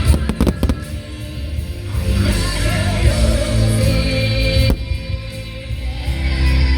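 Music with singing from a fireworks show's soundtrack, with a few sharp firework bangs in the first second and one more about two-thirds through.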